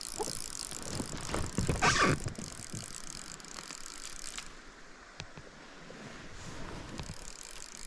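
Fly reel's click-and-pawl drag ratcheting in a rapid run of clicks while a hooked Arctic grayling is played. The clicking is loudest about two seconds in and thins out after about four seconds.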